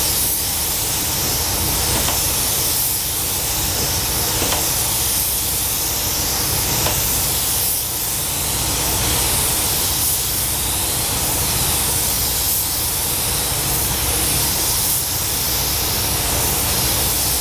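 Gravity-feed paint spray gun hissing steadily as compressed air atomises paint onto a car body, with a steady low rumble underneath.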